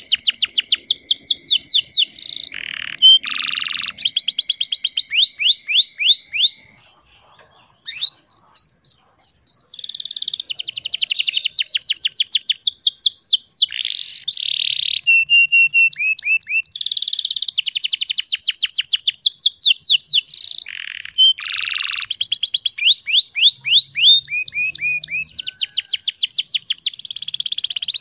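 Domestic canary singing: long fast trills and rolling runs of rapidly repeated high sweeping notes, with one short pause about seven seconds in.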